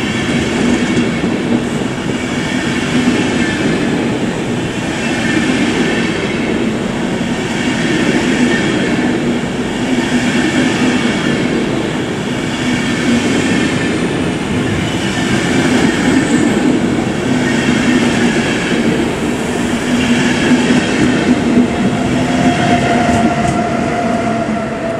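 Deutsche Bahn Intercity train passing through a station at speed: steady rolling noise of wheels on rail that swells about every two seconds as each coach goes by. Near the end a steady whine joins in as the Class 101 electric locomotive passes.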